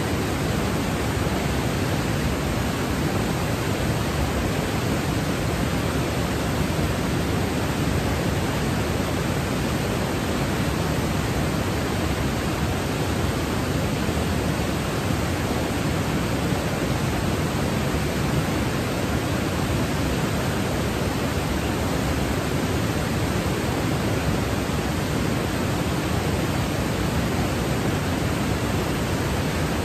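Mountain waterfall cascading over rock slabs: a loud, steady rush of white water.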